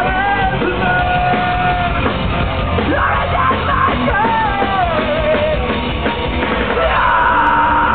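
Live rock band playing loud, with a voice singing over it and yells. About seven seconds in, a steady high held tone comes in.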